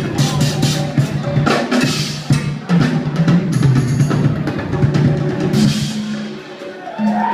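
Drum kit solo: rapid strikes on snare, toms, bass drum and cymbals, thinning out briefly near the end before picking up again.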